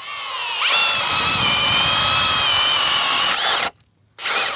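Ridgid Octane cordless drill in second speed driving a 13/16-inch Diablo paddle bit through a treated 4x4. The motor whine climbs as it spins up in the first second, then runs steady under load. It stops about three and a half seconds in and starts again just before the end.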